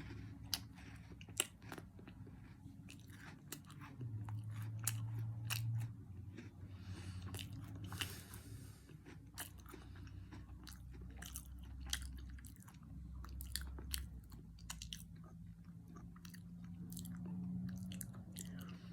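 Chewing a mouthful of a Twix Cookie Dough candy bar, with many small crunching clicks throughout.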